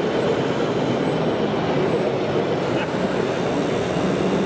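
Steady, even din of a large, busy exhibition hall, with no distinct event standing out.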